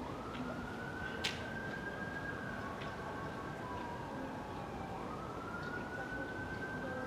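A siren wailing: a single tone rises, holds, slides down, then rises again. A sharp click sounds about a second in.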